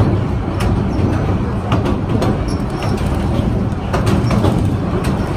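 Myanmar Railways passenger train running along the track, heard from inside the carriage: a steady heavy rumble with irregular knocks and rattles from the wheels and carriage.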